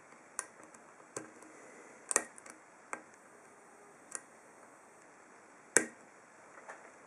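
Small, sharp clicks from a pick hook working the pin stack inside an ASSA Ruko 2 padlock core. About six irregular clicks, the loudest about three-quarters of the way through.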